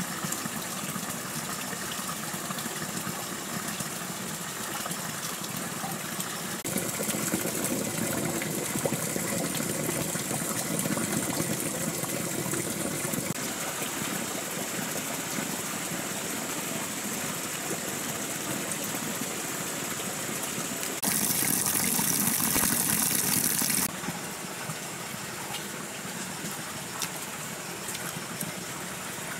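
Steady rushing noise of flowing water. It grows a little louder about seven seconds in, and a louder hiss comes in for about three seconds two-thirds of the way through.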